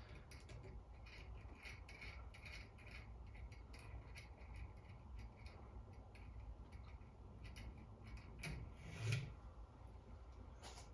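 Faint clicks and scraping of a metal knob being turned by hand on the threaded rod under a ceiling fan's light kit, with a slightly louder knock about nine seconds in.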